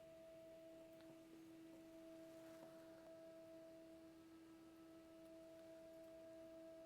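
Near silence with a faint steady hum made of two pure tones an octave apart, and a few faint ticks.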